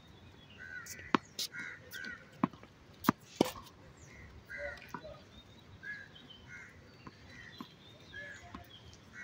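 A tennis ball is struck by rackets and bounces on a hard court: about five sharp pops within the first three and a half seconds, the first about a second in. Birds call repeatedly in short caws throughout.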